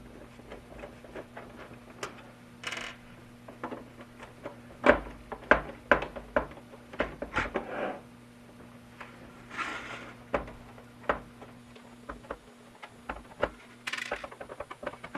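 Irregular clicks, taps and brief scrapes of hard plastic parts and small pieces being handled while the plastic case of a Big Mouth Billy Bass is being worked open.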